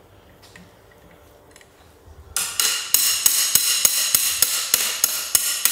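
Rapid, evenly spaced metallic strikes with a ringing tone, about six a second, starting a little over two seconds in: a steel hand tool being worked on the stripped engine's crankcase and crankshaft.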